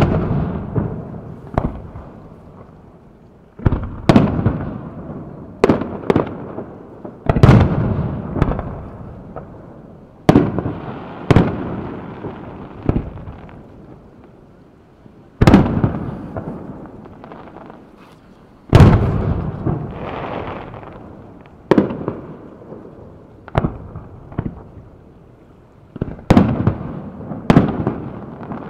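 Aerial firework shells bursting one after another, about twenty sharp bangs at uneven intervals, some in quick pairs, each trailing off over a second or two.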